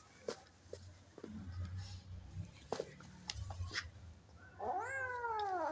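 Domestic cats scuffling, with scattered light taps and scrapes, then near the end one cat gives a single long yowl that rises and then falls in pitch, a fighting cry.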